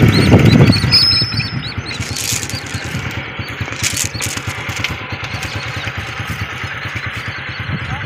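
Steady low rumble on a phone microphone outdoors, loudest in the first second. Two brief rustles about two and four seconds in, as the phone brushes against clothing.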